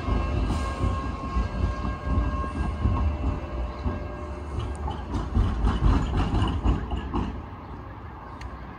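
Sheffield Supertram Siemens-Duewag tram passing on street track: a rumble with a steady high whine at first, then a run of quick clicks and squeaks from the wheels on the curved rails. It fades away near the end.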